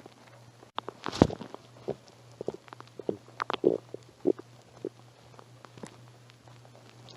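A stomach growling and gurgling: a loud gurgle about a second in, then a string of shorter gurgles and squelches over the next few seconds that die away.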